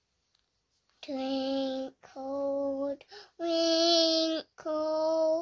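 A high voice singing a slow children's rhyme in long held notes: near silence for about a second, then four drawn-out notes with short breaks between them, the last two pitched a little higher than the first two.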